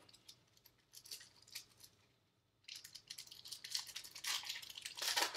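Foil wrapper of a trading-card pack crinkling and tearing as it is opened by hand. A few faint clicks come first, then a brief lull, and dense crackling begins about two and a half seconds in.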